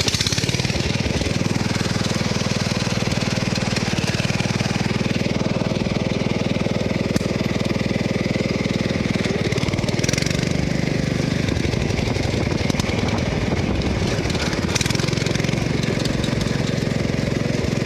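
Riding lawn mower's small engine running continuously while the mower is driven. The engine note shifts about ten seconds in and again near the end.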